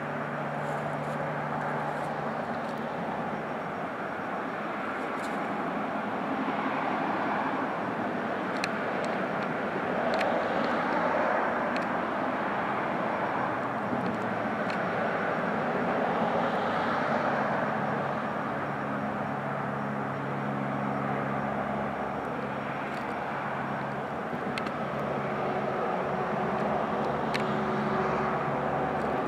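Steady drone of a distant engine, its low pitch slowly shifting, with a few faint clicks.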